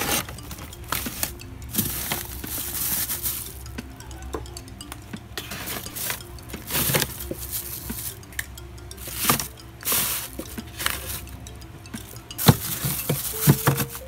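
Plastic food tubs clacking against one another and the frosted freezer shelf as they are pushed into place, with plastic rustling in between.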